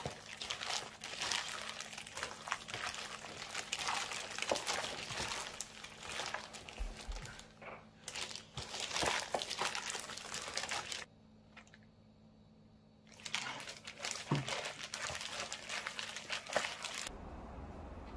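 Disposable plastic glove crinkling and wet pancake batter squishing as a hand mixes kimchi, beef and pancake flour in a plastic container, in irregular crackly bursts; it stops for about two seconds partway and resumes. Near the end it gives way to a steady low hum.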